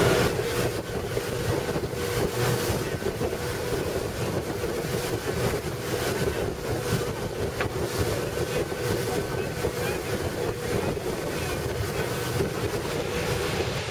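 Wind buffeting the microphone aboard a motorboat running at speed, over rushing water and a steady engine hum.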